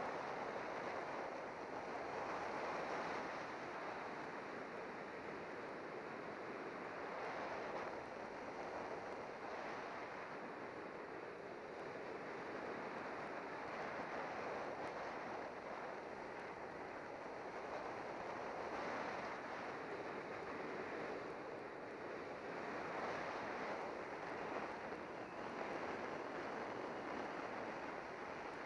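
Wind rushing over the microphone of a camera mounted on a road bike descending at speed, a steady rushing noise that swells and eases a little.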